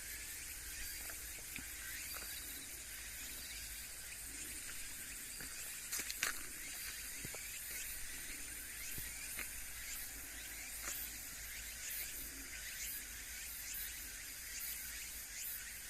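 Steady outdoor chorus of insects: a high, continuous chirring with many small repeated chirps over a faint low hum. A single sharp click sounds about six seconds in.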